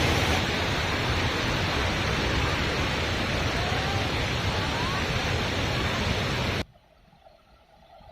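Waterfall rushing loudly in a steady, heavy flow of muddy water. About two-thirds of the way through it cuts off suddenly, leaving a much quieter background with a faint low hum.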